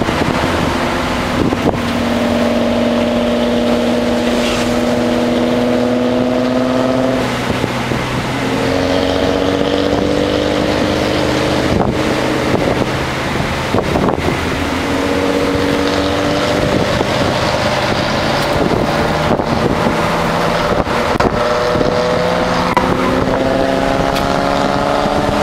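Nissan Altima SE-R's 3.5-litre V6 heard from inside the cabin while driving, its note climbing slowly and dropping back sharply three times, over steady road and wind noise.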